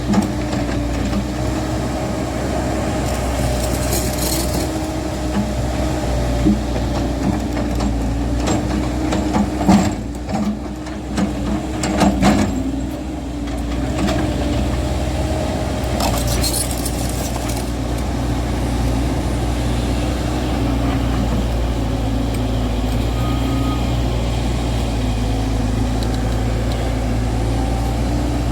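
JCB JS140 tracked excavator's diesel engine running steadily while it works, with several sharp metal knocks and a couple of short hisses.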